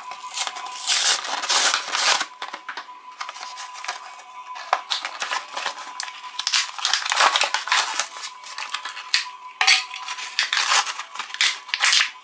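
Toy packaging crinkling and tearing as it is torn open and unwrapped: a foil blister pack, a paper wrapper, then a clear plastic bag, in repeated bursts. Faint background music with steady tones runs underneath.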